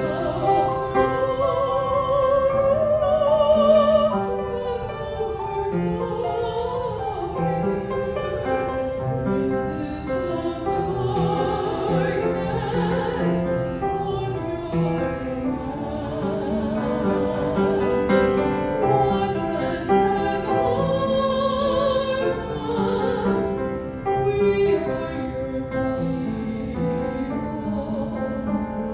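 A woman singing a slow solo with a wide vibrato on held notes, with piano accompaniment.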